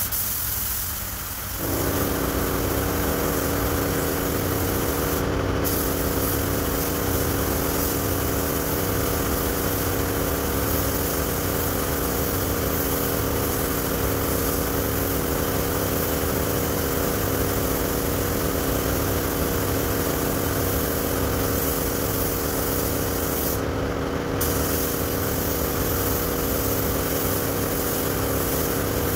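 Paint spray gun hissing with compressed air as it sprays silver paint onto a bus's rear bumper, with a steady whistle under the hiss. The air comes on about a second and a half in, and the hiss briefly lets up twice.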